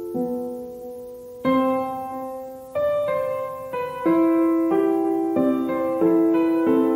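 Background music: a slow, gentle piano piece, chords struck about every second and left to ring and fade.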